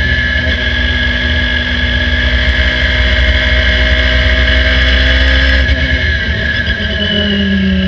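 Engine of a 2013 Radical SR3 RS race car running at high revs, around 7,500 rpm on the dash, with a steady note for about six seconds. Near six seconds the note changes and drops briefly in loudness, then settles on a new, lower pitch.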